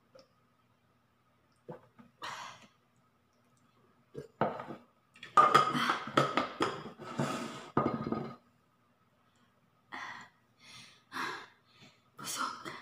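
A woman's breaths and sighs, mixed with clinks and knocks from a plastic drinking tumbler and straw being handled on a table. The handling sounds are busiest and loudest in the middle.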